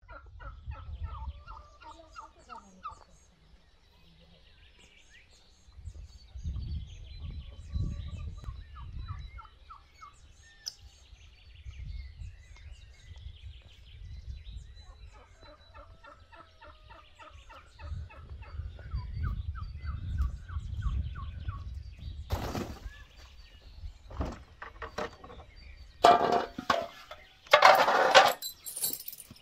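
A domestic turkey gobbling several times, each gobble a quick rattling run of notes, over a low rumble. Near the end come a few loud bursts of noise and knocks.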